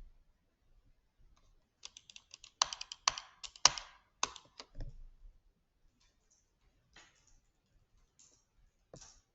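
A quick flurry of sharp clicks for about three seconds, then a few scattered single clicks.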